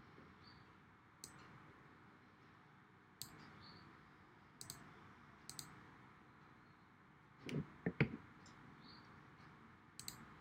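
Computer mouse clicks, single and in quick pairs, over faint steady hiss. A few louder, duller thumps come close together about three quarters of the way through.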